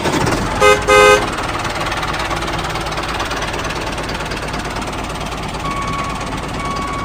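Two short vehicle horn toots about a second in, then a steady engine-like running rumble.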